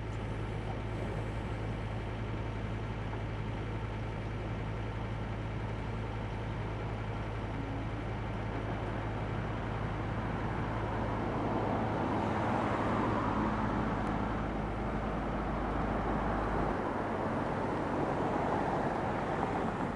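Diesel engine of a John Deere tracked excavator running steadily under a broad rumble of noise that grows a little louder partway through.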